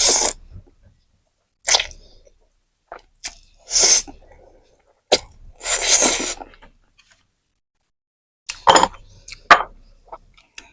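Close-miked eating sounds: a series of separate slurps and mouth noises from eating noodles, about seven in all, a couple drawn out to half a second or more.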